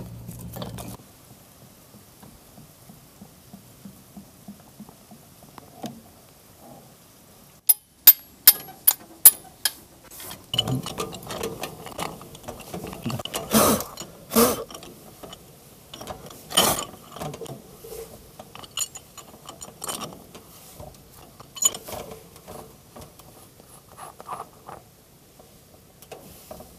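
Metal clanks, knocks and scraping of a pipe wrench working a threaded filler cap loose on a tractor. A quick run of sharp clicks comes about eight seconds in, before the clanking starts.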